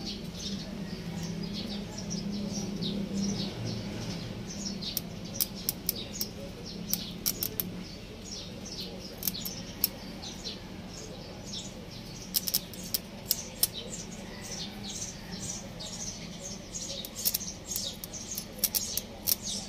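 Birds chirping: many short, quick falling chirps, over and over, with scattered sharp clicks in clusters and a steady low hum underneath.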